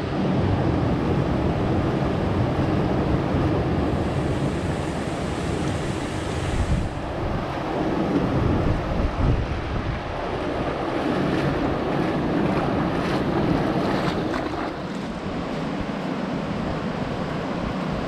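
Shallow mountain river rushing steadily over rocks and rapids, with wind rumbling on the microphone.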